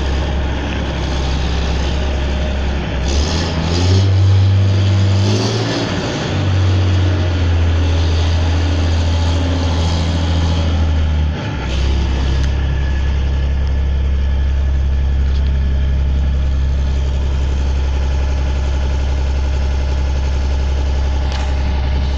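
Claas Dominator 76 combine harvester's diesel engine running steadily. A few seconds in it revs up and holds the higher speed for about eight seconds, then drops back to its steady run.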